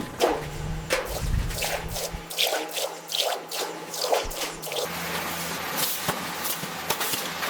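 A quick run of short dripping, squelching sounds, about two or three a second, each dropping in pitch, over a steady low hum.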